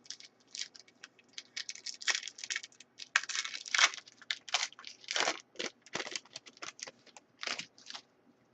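A pack of trading cards being torn open by hand, the wrapper ripping and crinkling in a quick run of short rustles that stop about eight seconds in.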